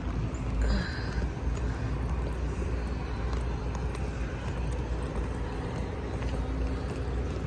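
A steady low outdoor rumble with a faint constant hum underneath.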